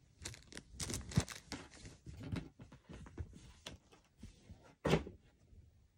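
Close handling noises: a run of rustles and light clicks for about three seconds, then a single sharper knock about five seconds in.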